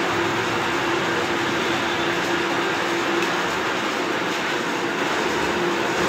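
Flywheel-facing machine running steadily with a flywheel spinning beside its cup grinding wheel: an even machine noise with a steady hum.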